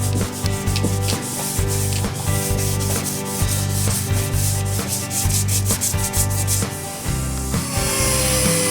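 Instrumental background music: held notes with fast, even, shaker-like ticks, and a wavering melody line coming in near the end.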